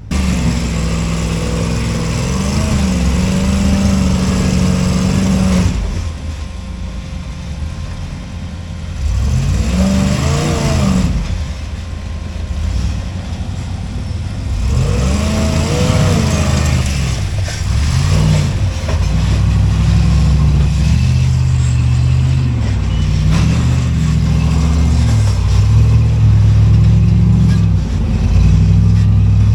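Off-road rock crawler's engine running under load, revving up and easing off in repeated surges as it climbs over rocks.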